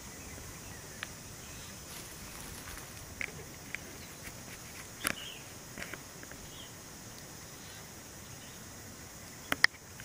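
Steady, high-pitched chorus of insects in forest undergrowth, with scattered small clicks and snaps and two sharper ones near the end.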